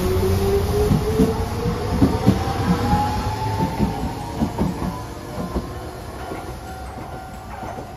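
Hiroshima Electric Railway 3800-series articulated tram pulling away: its motor whine rises steadily in pitch as it gathers speed, and its wheels clack over the rail joints. The sound fades as the tram moves off.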